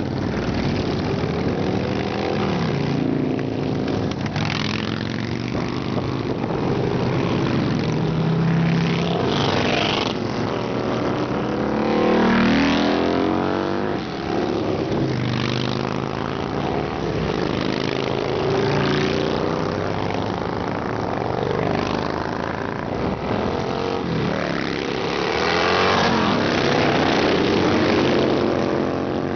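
A long procession of cruiser and touring motorcycles riding past one after another, their engines pulling away in gear. The sound swells and fades as each bike or group goes by, with pitch sliding as they pass, and is loudest about twelve seconds in and again near the end.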